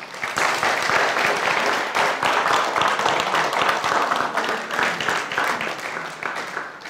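Audience applauding: many hands clapping that start at once, hold steady, then die away near the end.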